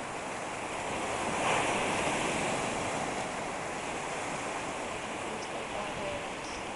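Sea surf breaking and washing in over rocks at the water's edge, a steady rushing that swells about a second and a half in.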